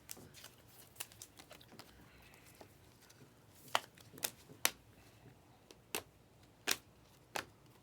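Trading cards and packs being handled: quiet rustling with a string of sharp clicks and snaps, the loudest half a dozen coming in the second half.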